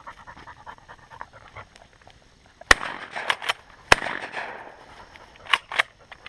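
Two loud shotgun shots about a second apart near the middle, with further sharper shots near the end, while a retriever dog whimpers and pants.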